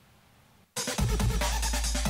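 Faint room tone, then electronic music with a heavy bass and a steady beat starts suddenly under a second in.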